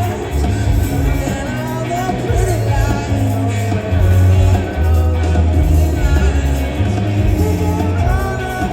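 Live rock band playing a song, with a sung vocal line over sustained, shifting bass notes.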